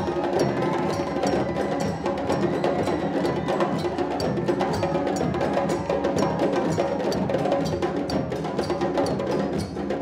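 Djembe drum ensemble playing together, with a drum on a stand beaten with sticks: a dense, steady rhythm of fast hand and stick strikes with no break.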